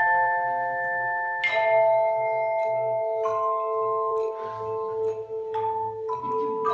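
Handbell choir playing a slow piece: chords of bells struck a few times, each left ringing and slowly fading as the next chord comes in.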